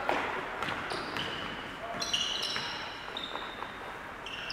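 Basketball game sounds: players' shoes squeaking sharply and repeatedly on the court floor, the ball bouncing a few times, and voices calling.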